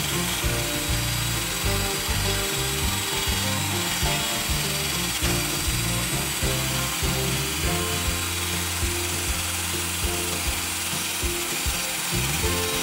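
Background music with a steady beat, over a power drill grinding old plaster and mortar out from between the stones of a wall.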